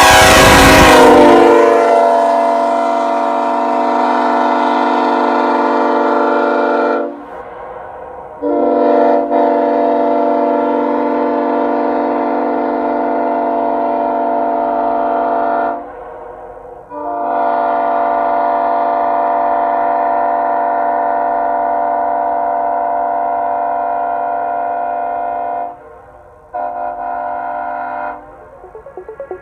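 Nathan Airchime K5HL five-chime train horn (bells 1L, 1, 2, 3, 4, its deepest K-series chord) blown in long blasts: a loud chord of several steady tones held about seven seconds, then two more blasts of about seven and eight seconds with short breaks between, and a short final blast near the end.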